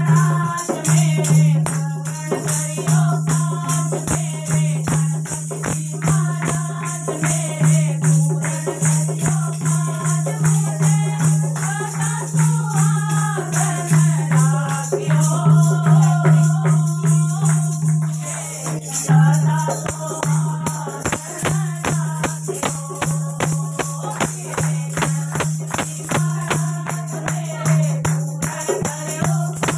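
Women singing a Hindi devotional bhajan to Ganesha in unison, over a dholak drum, a jingling tambourine and hand clapping in a steady rhythm. A steady low hum runs beneath the music.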